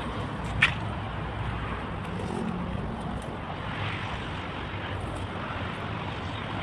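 Steady outdoor rumble and hiss, with one brief click about half a second in.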